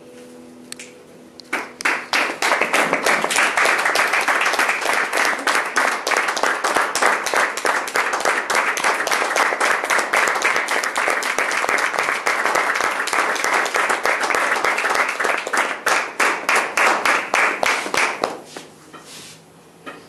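Audience applauding with dense hand claps, starting about a second and a half in and dying away near the end.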